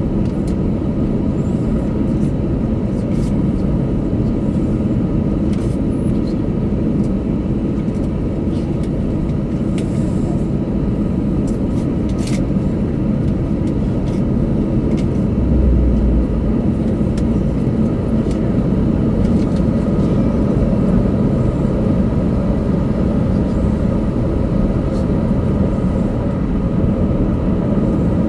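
Cabin noise of an Airbus A321-200 taxiing: a steady low rumble of engines and air conditioning with a faint steady whine, a few small clicks, and a brief low thud about halfway through.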